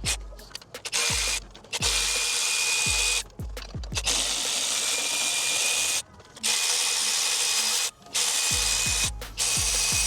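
Cordless power tool, a drill-type driver, running in repeated bursts of one to two seconds with a steady motor whine, stopping and starting several times, as fasteners are run out during water pump removal.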